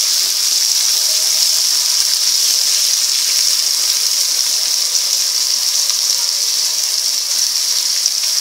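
Sliced onions sizzling steadily in hot oil in a non-stick kadhai as they are stirred with a spoon, being sautéed until they turn reddish-brown.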